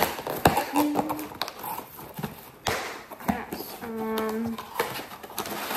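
A shipping package being torn open and unpacked by hand: paper packing crinkling and rustling, with sharp tearing sounds and small knocks.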